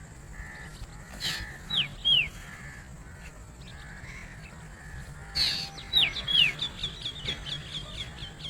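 Birds calling: a pair of falling whistled notes comes twice, each time just after a short harsh call, and in the last couple of seconds a quick run of short high notes, about five a second.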